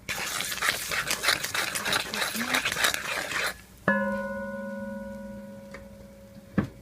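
Spices sizzling and crackling in hot oil in a pan, stopping abruptly after about three and a half seconds. Then a single metallic ring from something struck, fading over about two seconds, and a click near the end.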